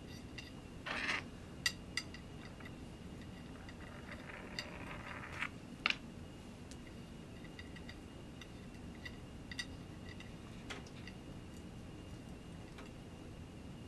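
Sparse light metallic clicks and ticks of an Allen key turning a screw into a Kamerar SD-1 camera slider, with a short scrape about a second in and a rasping stretch followed by a sharp click around five to six seconds in.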